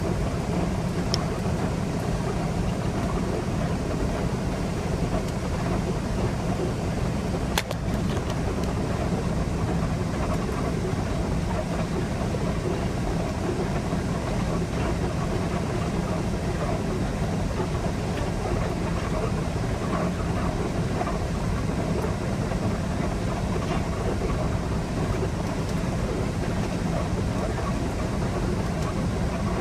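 Semi-truck's diesel engine running while the truck rolls slowly, heard from inside the cab as a steady low rumble, with one sharp click about eight seconds in.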